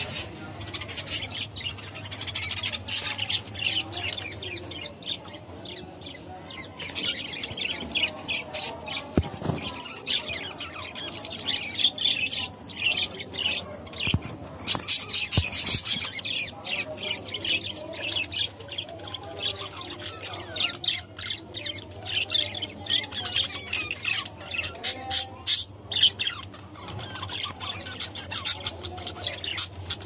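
Caged budgerigars chattering and squawking: many short, sharp, high calls in quick runs, with brief lulls between them.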